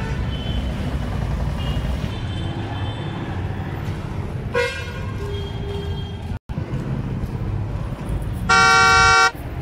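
Low steady outdoor traffic rumble, then near the end one loud vehicle horn blast lasting under a second, steady in pitch. The sound cuts out for an instant just past halfway.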